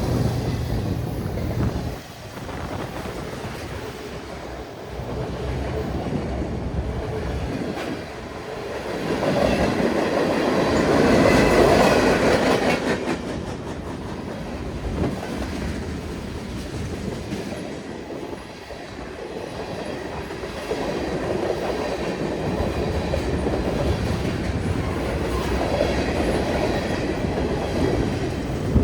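CN freight train rolling past: steady low rumble with the clickety-clack of steel wheels over the rails. It swells to its loudest about ten to twelve seconds in, then eases off.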